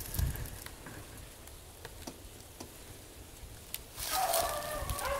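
Faint rustle and clicks of clothing and gear, then, about four seconds in, a pack of beagles starts baying in the distance. Several wavering voices overlap as the hounds run a rabbit.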